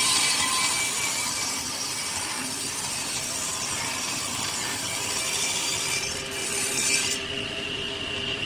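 Table saw running and ripping a block of hardwood: a steady blade whine under the hiss of the cut. The cutting noise stops about seven seconds in, leaving the saw spinning.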